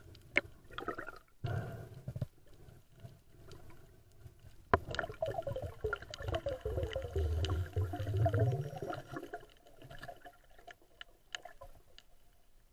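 Muffled underwater water noise heard through a camera housing: gurgling and sloshing with scattered sharp clicks and knocks, the gurgling louder from about five to nine seconds in.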